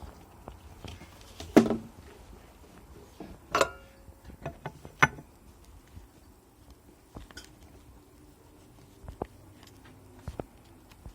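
Scattered knocks and clatter of parts and tools being handled, with three louder knocks about one and a half, three and a half and five seconds in, the middle one ringing briefly like metal.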